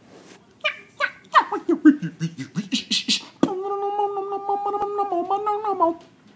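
Human beatboxing: a quick run of vocal drum sounds, clicks and pops, then about halfway a steady hummed note held under a regular beat of mouth clicks, stopping shortly before the end.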